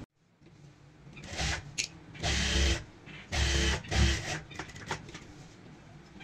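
Industrial sewing machine stitching cotton fabric in four short runs of about half a second each, with pauses between as the pocket seam is guided.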